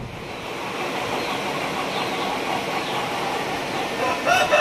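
Steady rushing background noise with faint bird chirps, then a rooster starts crowing about four seconds in, loud and clear over the rush.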